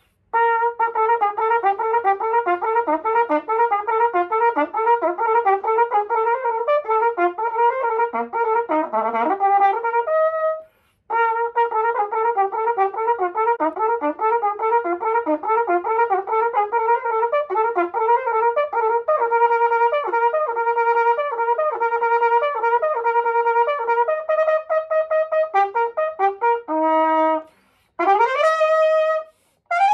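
Silver-plated Yamaha YCT-2330II B♭ cornet played solo in fast runs of short, tongued notes, pausing briefly about a third of the way in and ending with a quick upward rip to a high note. It is a play test of the valves after repair of deformed valve casings, with the valves working freely.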